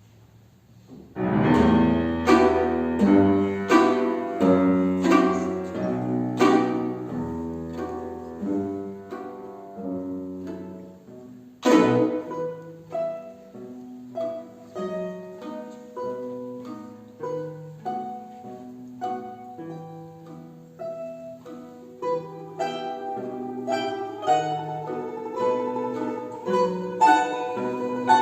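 Instrumental music: a quick melody of separate notes over low bass notes, starting about a second in, with one loud accented chord about halfway through.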